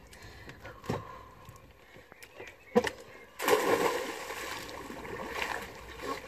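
A person jumping off a boat's swim platform into the sea: a sharp thump just under three seconds in, then a loud splash about half a second later, fading into churning, sloshing water.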